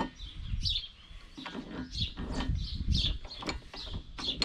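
Small birds chirping over and over in the background, with a few knocks and clunks of metal parts being handled at a vise.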